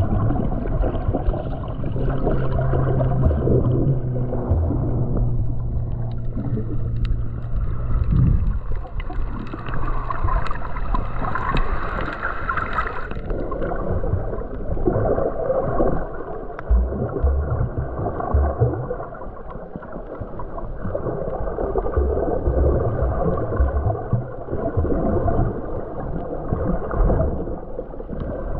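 Muffled underwater water noise picked up by a submerged camera: sloshing and gurgling while snorkeling. A steady low hum runs under it for the first several seconds, and the sound changes character about halfway through.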